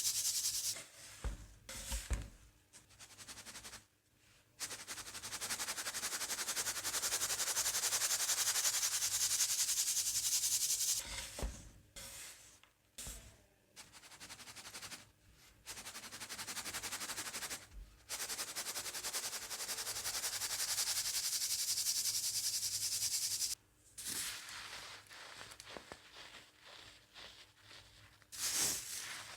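Baking soda being sifted through a sieve: a steady fine hiss in long stretches with short breaks. About three-quarters of the way through it gives way to quieter, irregular crunching as baking-soda pebbles are crushed.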